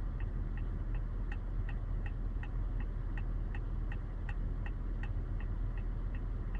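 Car's turn-signal indicator ticking evenly, about three ticks a second, over a steady low hum from the idling engine inside the cabin.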